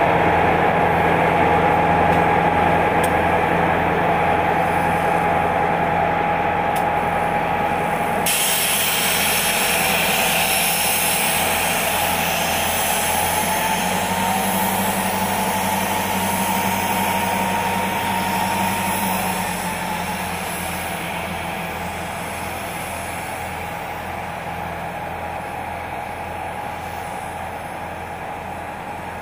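Norfolk Southern diesel locomotives running as they roll slowly past, a steady engine drone with a held hum. A hiss comes in suddenly about eight seconds in, and the drone fades over the last several seconds as the locomotives move away.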